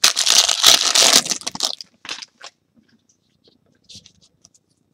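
Foil trading-card pack wrapper being torn open and crinkled for about two seconds, then stopping. After that come faint scattered clicks as the cards are handled.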